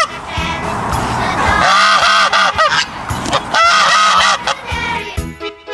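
Geese honking in three bouts of rapid calls, over a children's song backing track.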